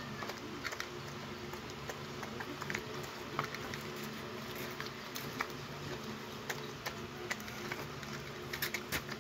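A dog eating soft rice mash from a shallow metal bowl: irregular wet chewing and licking clicks, several a second, over a steady low hum.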